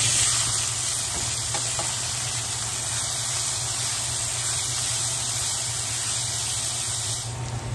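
Small diced potatoes dropped into hot oil in a pan, starting a loud sizzle at once that carries on as a steady frying hiss and eases slightly near the end.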